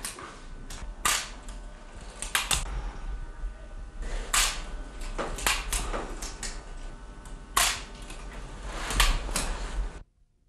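A series of about a dozen sharp, irregular clicks, some coming in quick pairs or threes, over a steady low mains hum; everything cuts off abruptly near the end.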